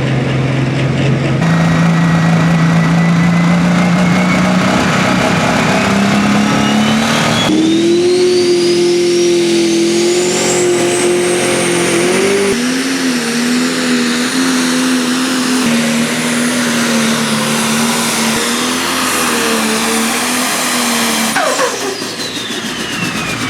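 Pro Stock pulling tractors' turbocharged diesel engines, several in turn, idling and revving after startup, with the engine note changing abruptly where one tractor gives way to the next. A high whistle climbs steadily as a turbo spools up, and near the end a whistle falls away as one winds down.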